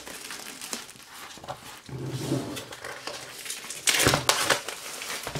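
Thin plastic shrink-wrap crinkling and tearing as it is peeled off a vinyl LP sleeve by hand, with a sharp loud crackle about four seconds in.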